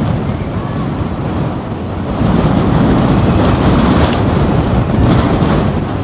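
Strong gusty wind rushing through bare trees and buffeting the microphone, growing louder about two seconds in.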